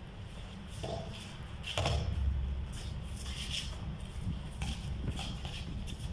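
Basketball players' sneakers shuffling and scuffing on a concrete court in a pickup game, a scattering of short scrapes and taps over a steady low rumble.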